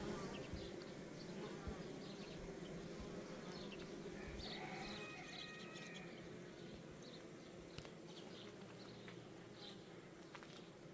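Insect buzzing, a low steady drone that slowly fades.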